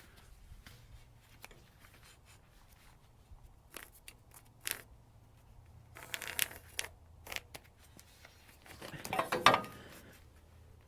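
Scattered light clicks, scrapes and knocks from handling, over a faint steady low hum, with the loudest cluster near the end.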